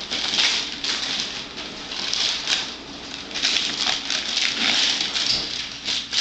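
Wrapping paper and tissue paper rustling, crinkling and tearing in quick irregular bursts as a gift is unwrapped by hand.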